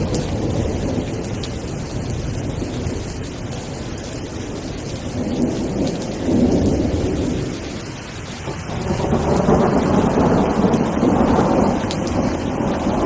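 Steady rain with rolling thunder: low rumbles swell about halfway through and again over the last few seconds.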